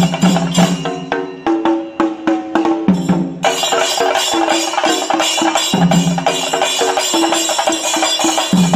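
Singari melam: a group of Kerala chenda drums beaten with sticks in a fast, dense, continuous rhythm.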